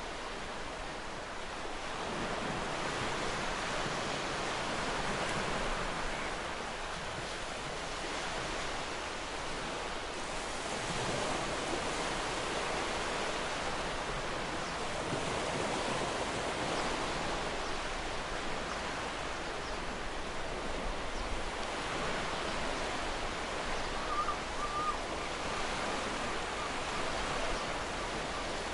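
Sea waves washing on a shore: a steady rushing surf that swells and eases slowly, without breaks.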